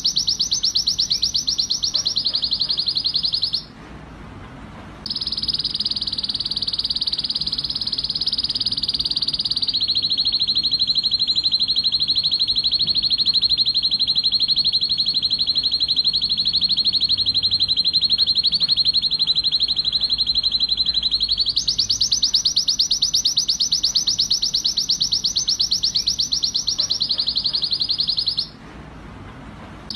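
Male red-factor canary singing an excited breeding song: long, fast trills that run on almost without pause, breaking off briefly a few seconds in and again near the end.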